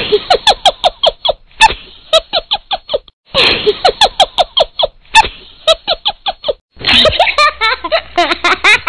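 Squeaky, high-pitched giggling laughter in quick repeated notes, each note falling in pitch, coming in three runs with short breaks between them.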